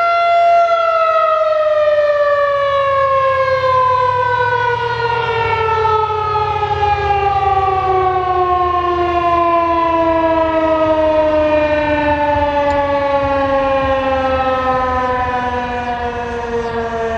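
Federal Signal 2001-DC outdoor warning siren finishing its steady Alert tone and winding down: after about half a second the pitch starts to fall and keeps sliding slowly and evenly lower as the rotor slows.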